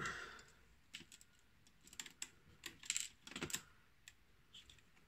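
Light, irregular clicks and taps of small plastic model parts being handled, most of them bunched in the middle.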